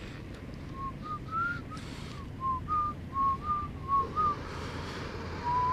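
A person whistling a tune: about a dozen short notes that step up and down in pitch, then one long held note near the end.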